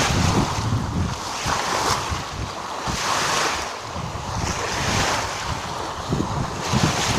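Sea waves washing in, in repeated swells of hiss, with wind buffeting the microphone in low rumbling gusts.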